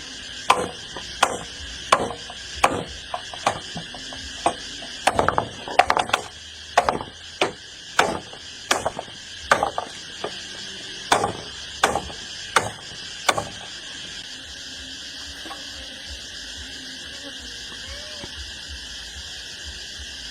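A tool striking wood in a steady rhythm, about three blows every two seconds, stopping about thirteen seconds in. A steady high-pitched drone runs underneath.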